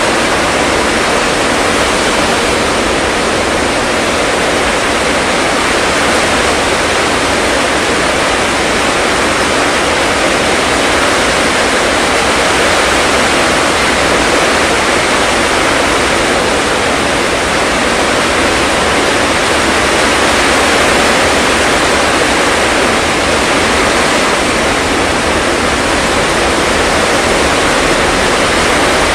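Heavy tropical downpour: rain pouring down steadily in a loud, even hiss.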